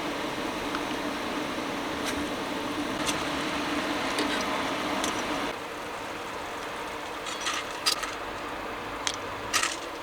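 A steady hum that drops in level about halfway through, with scattered light clicks and taps, the clearest near the end.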